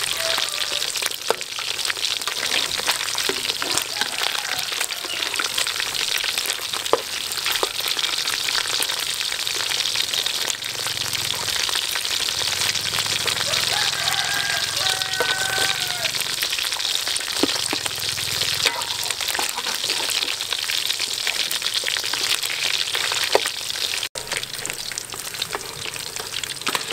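Small whole fish frying in hot oil in a steel wok: a steady crackling sizzle, with a metal spatula now and then scraping and tapping against the pan.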